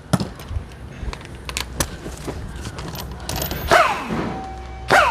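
Scattered metal clicks and knocks of a socket and tool being handled, then an impact wrench blipped twice, about three quarters through and near the end, its motor whirring up and winding down in pitch each time.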